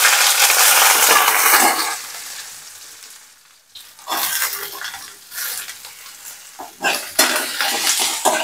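Sliced onions hitting hot oil in a kadai, where mustard seeds have already spluttered, and sizzling loudly; the sizzle dies down over the first few seconds. About four seconds in, more onions scraped in from a steel bowl bring a fresh sizzle, with metal spoon knocks and stirring against the pan near the end.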